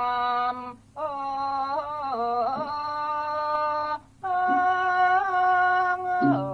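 Male vocalist singing Thai classical song, holding long ornamented melismatic notes with wavering pitch, broken twice by short pauses for breath, over a few sparse low instrumental notes.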